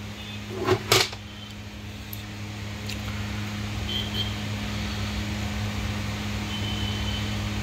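Steady low electrical hum, like a fan or motor, with a brief rustle about a second in and a few faint clicks as thread is worked between the tension plates of a bag closer machine.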